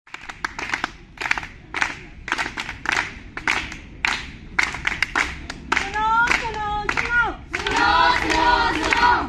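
Group of voices clapping in a steady rhythm, then breaking into a loud unison chant or song over the clapping about six seconds in.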